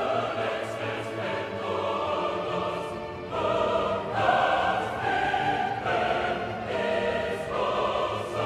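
Background music: choral singing in a classical style, with slow, held chords that change about once a second.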